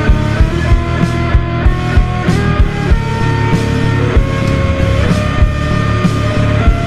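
Slowed-down rock song with heavy reverb: held guitar notes over a steady drum beat.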